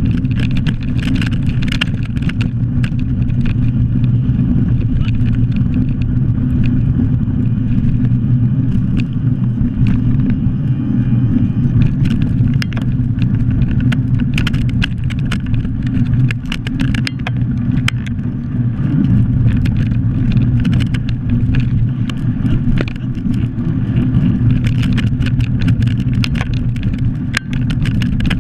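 Bike wheels rolling fast over a rough gravel track: a steady low rumble of tyres and wind on the microphone, with constant small clicks and rattles from the bike over the stones.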